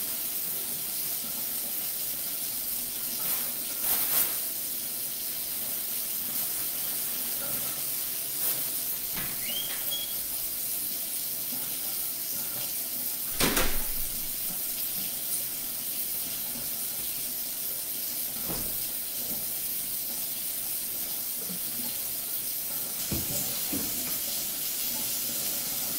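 A steady high-pitched hiss of kitchen room tone, broken by a few scattered knocks and clicks, the loudest about halfway through. Near the end a refrigerator door is opened.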